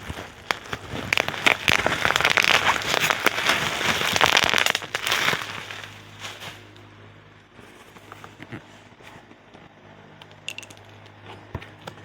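Plastic packaging from a model kit being handled and crinkled: a dense, loud crackling for about four seconds. It then dies down to faint scattered clicks and rustles.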